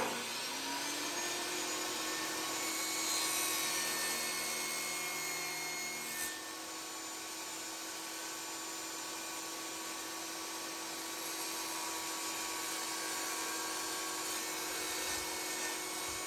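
Electric power saw starting up, its motor whine rising to speed within the first second, then running steadily while wood is cut.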